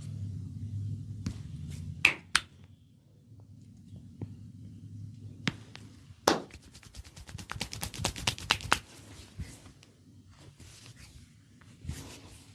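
Sharp cracks and snaps of skin cracking during a Thai massage. Two snaps come about two seconds in, and one loud crack a little after six seconds. A quick run of snaps follows for about two seconds, with a few more near the end.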